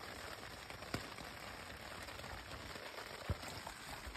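Rain falling on a tent: a steady hiss of small drops with single heavier drops striking the fabric, two louder ones about a second in and just after three seconds.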